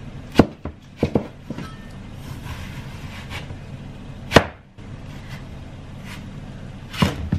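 A large cleaver-style knife cuts through watermelon and knocks down onto a wooden cutting board in sharp knocks. There is one just after the start, a quick pair about a second in, a loud one a little past four seconds, and a cluster near the end.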